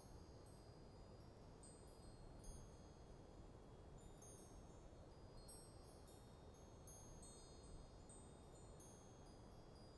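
Wind chimes tinkling faintly in a light breeze: many high ringing notes struck at random and overlapping as they fade, over a low, steady rush of wind.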